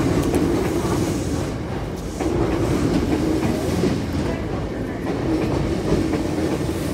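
Electric train noise at a station platform: a steady low rumble that swells and dips every couple of seconds.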